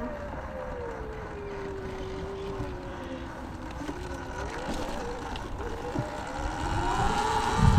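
Sur-Ron electric dirt bike's motor and drive belt whining while riding, the pitch dropping as it slows and rising again as it speeds up near the end, with wind rumbling on the microphone. The rider calls the belt loud and says it doesn't sound normal; he suspects dirt or water buildup in the belt.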